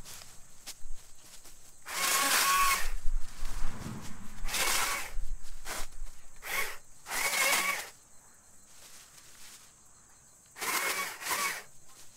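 Small battery chainsaw cutting brush and low branches at the base of a tree, run in about five short bursts of under a second each with quiet gaps between, each burst a rising motor whine as the chain bites.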